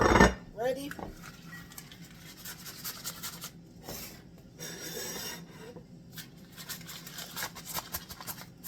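A sharp knock at the start, like a plate set down on the counter, then repeated soft scraping and rubbing as cream cheese frosting is worked onto the plate in the kitchen.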